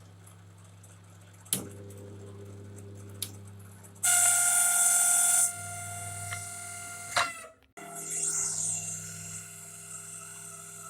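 LG microwave oven running with a steady electrical hum and a few clicks. About four seconds in, a loud, high whine with a harsh edge lasts about a second and a half. This is the noise fault, which the repairer puts down to a dry shaded-pole motor.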